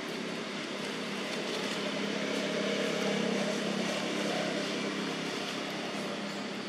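Engine hum of a motor vehicle, steady with a low drone, swelling about three seconds in and then easing off.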